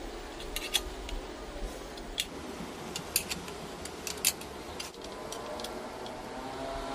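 Light metallic clicks and taps, scattered irregularly, as a combination wrench and bolts are handled against a welded steel drill-stand carriage, over a low steady hum.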